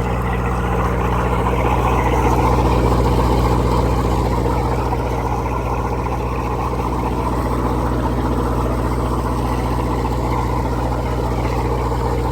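Cummins Onan 13.5 kW marine diesel generator running steadily.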